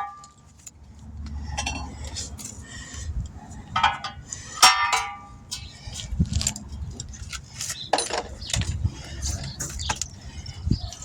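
Metal tools and parts clinking and clattering in scattered knocks while tires are worked on by hand.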